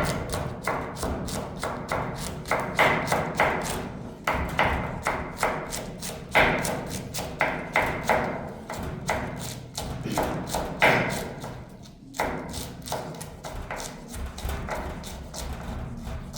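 Knife chopping on a cutting board: a quick, even run of knocks, about four or five a second, with short pauses now and then.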